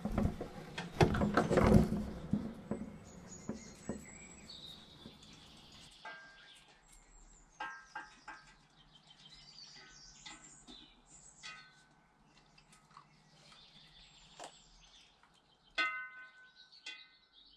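Metal saucepans and kitchen utensils clattering as a dog noses and knocks among them, loudest in the first two seconds. After that the sound falls away to faint birdsong and a few light metallic clinks.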